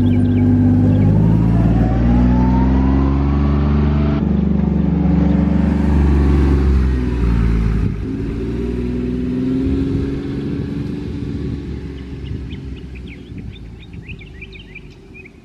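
A motor vehicle's engine running loud and close, its pitch shifting up and down, then fading away over the last several seconds. Birds chirp near the end.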